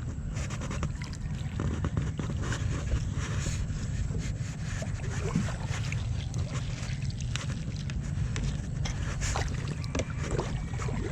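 Small boat out on the water: a steady low rumble with scattered splashes and knocks.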